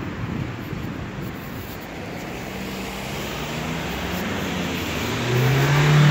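Street traffic noise with a motor vehicle's engine close by, its low hum getting louder in the last second.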